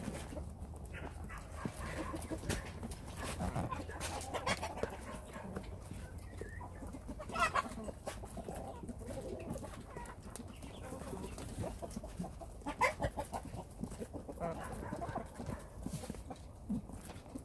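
Chickens clucking a few times, short calls with the clearest about seven and thirteen seconds in, over frequent small clicks and taps of animals feeding.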